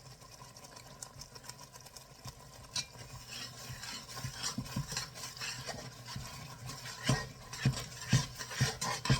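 A spoon stirring thick spiced tomato gravy in a cooking pot, scraping and clicking against the pot. It starts quietly and gets busier after about three seconds, with several sharper knocks near the end.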